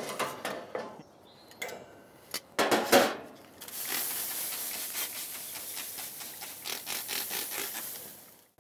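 Metal tongs scraping and clattering on a gas grill's grate as charred, soaked cedar planks are turned and laid lengthwise, with a few louder knocks near three seconds in. Then a steady hiss for about four and a half seconds as water is sprayed onto the hot, smoking planks.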